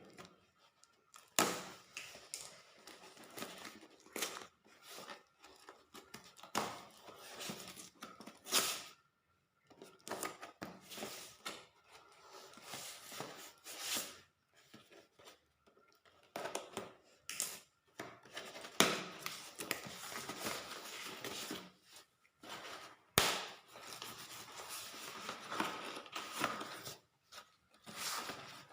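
Parcel packaging being opened by hand: irregular bursts of tearing, cutting and rustling, with a sharp click or knock about 23 seconds in.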